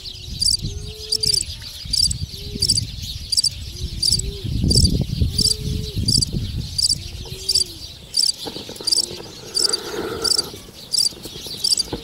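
A dove cooing over and over in short, low, arching notes. Behind it an insect chirps steadily in high pulses about twice a second.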